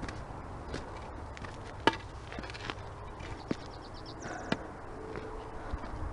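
Footsteps of a hiker on rock and gravel: irregular crunches, scuffs and clicks, one sharper click about two seconds in, over a low rumble on the microphone.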